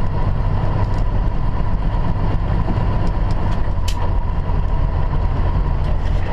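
Steady low drone of a semi-truck's engine and road noise heard inside the moving cab, with a thin constant whine on top and a few faint clicks.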